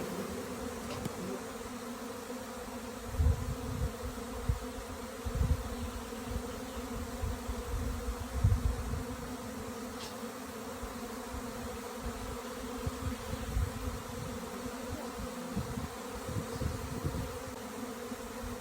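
Honey bees buzzing, a steady hum with a clear pitch, broken by occasional low thumps.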